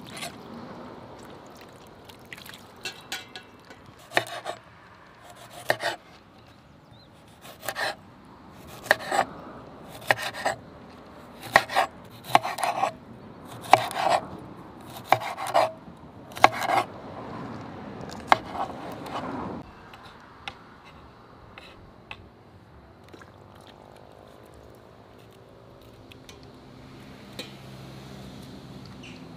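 Large kitchen knife chopping okra on a wooden cutting board: a run of sharp, irregular knocks of the blade striking the board, which stop about two-thirds of the way through.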